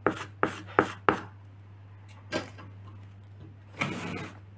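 Thick wet grey grout being stirred and scraped in a small pot with a brush handle: about four quick scrapes and taps against the pot in the first second, then a few softer scrapes.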